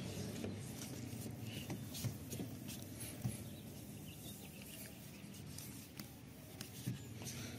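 Cloth rubbing remover cream over a car's window glass by hand: faint, scratchy rubbing with scattered small ticks and squeaks.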